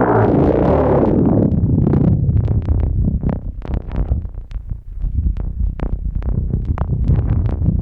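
Pittsburgh Modular Voltage Lab 2 analog synthesizer playing a patch: a dense, low drone with a fast, irregular patter of short, high blips over it.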